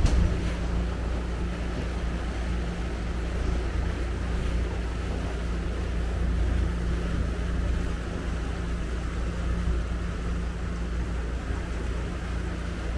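Small passenger ferry's engine running steadily under way, a low drone with water noise around the hull. There is a brief knock right at the start.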